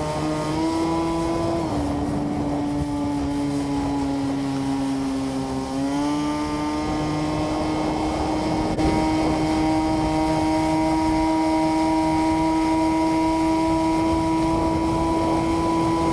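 Small engine running at high revs with a steady whine. Its pitch steps down early on and sags slowly, then rises about six seconds in and holds steady.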